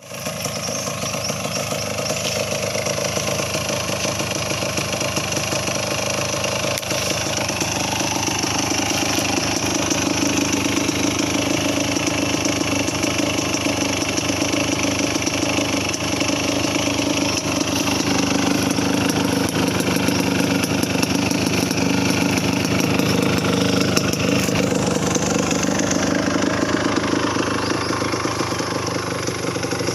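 Kawasaki KMX200's single-cylinder two-stroke engine running steadily near idle, its pitch shifting a little now and then.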